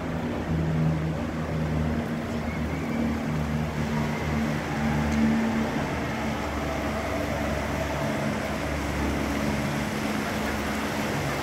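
Outdoor ambience: a steady rushing noise with a low rumble, and faint indistinct voices.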